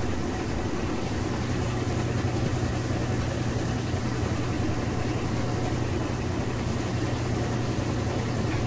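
Two top-load washing machines, an Amana and an Elite series 4, running together: a steady low motor hum under continuous machine noise.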